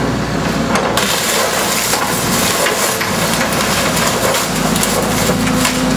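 Tracked excavator's bucket pressing down on the roof of an old convertible car, with crunching and creaking of the car body over the steady running of the excavator's engine.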